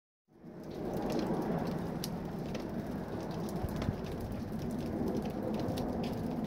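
Outdoor ambient noise: a steady rushing hiss with many light crackles scattered through it, starting just after a brief silence.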